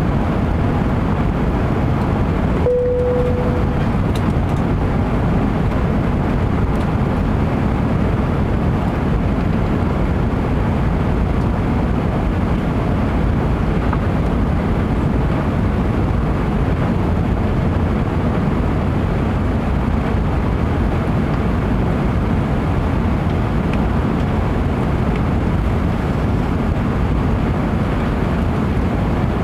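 Steady cabin noise inside an Airbus A380 airliner: engine and airflow noise heard from a passenger seat. About three seconds in, a brief single tone sounds once.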